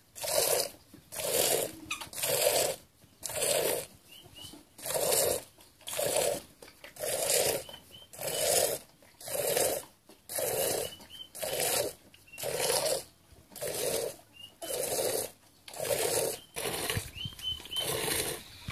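Hand-milking a goat into an aluminium pot: squirts of milk hitting the frothy milk already in the pot, in a steady rhythm of about one squirt a second.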